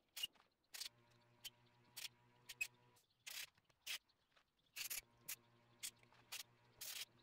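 Sharp clicks and knocks, one or two a second, as an extension-cord plug is handled and fitted to an electric lawnmower's power lead, over a faint hum that comes and goes.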